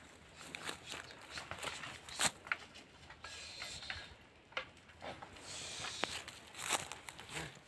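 Faint, irregular crunching steps on loose, freshly ploughed soil, with scattered clicks and a short rustle a little past the middle.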